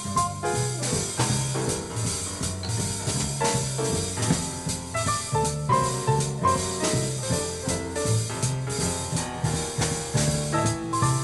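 Live small-group jazz from a big band's rhythm section: a Hornung & Møller piano playing short chords and runs over a bass line that steps note by note and a drum kit keeping time on the cymbals.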